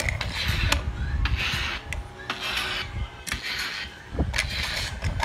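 Small die-cast toy car rolled back and forth on a wooden tabletop: its wheels make a rasping rub about five times, roughly one stroke a second, with small clicks as it is turned and set down.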